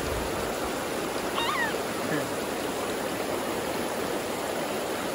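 Shallow creek water running over stones and around a log, a steady rushing hiss.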